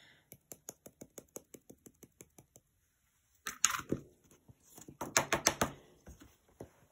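Rapid light tapping on a glitter jar, about six taps a second, shaking glitter out onto glued card. After a short pause come two clusters of louder knocks and rattles as the card is knocked to shake off the loose glitter.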